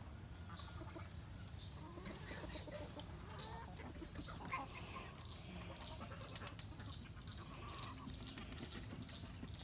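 Chickens clucking quietly in short scattered calls over a low rumble, with one brief knock about four and a half seconds in.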